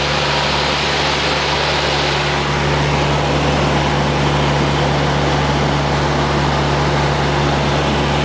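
A Cessna light aircraft's piston engine and propeller droning steadily in flight, heard from inside the cabin: a low, even hum under a broad rush of engine and air noise.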